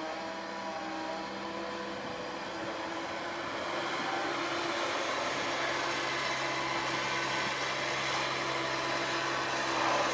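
Komatsu PC160 excavator's diesel engine and hydraulics working as the boom lifts a loaded bucket out of the pit and the machine swings. The engine runs steadily and gets louder about four seconds in.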